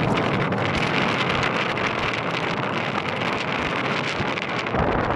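Wind buffeting the phone's microphone: a loud, steady rushing hiss with crackle that fades down about a second after the end.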